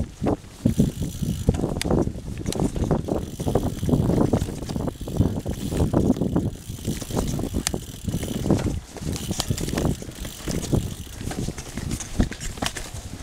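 Mountain bike riding fast down a dirt trail covered in dry leaves: tyres rolling and crunching over dirt and leaves, with the bike rattling and clicking over bumps throughout.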